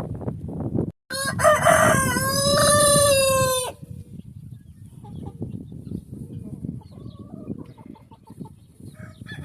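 A rooster crows once, loud and drawn out, for about two and a half seconds starting about a second in, with the call dropping at the end. Afterwards a few soft clucks are heard.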